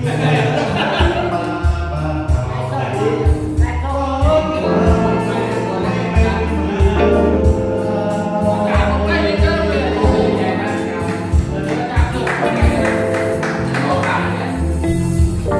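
Background music: a song with a singing voice and backing vocals over a steady drum beat.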